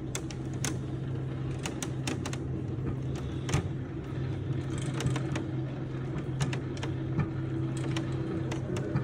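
A steady low hum with scattered sharp clicks and taps, one louder knock about three and a half seconds in.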